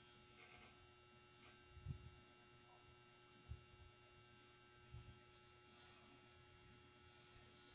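Near silence: a steady electrical hum, with three soft low thumps about two, three and a half and five seconds in.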